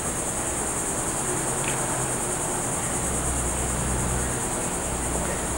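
Steady high-pitched chorus of insects outdoors, an unbroken shrill drone, with a low rumble underneath in the second half.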